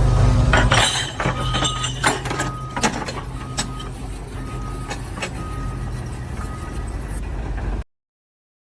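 A heavy vehicle's engine running with a reversing alarm beeping about once a second, and clanks and knocks of metal in the first few seconds. The sound cuts off suddenly near the end.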